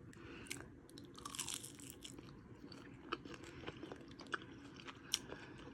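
A person biting and chewing a crispy pan-fried wonton close to the microphone, faint irregular crunching and crackling.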